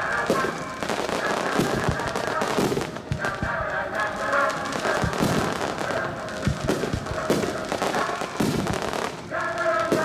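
Aerial firework shells bursting in a rapid, irregular string of bangs, with music playing alongside.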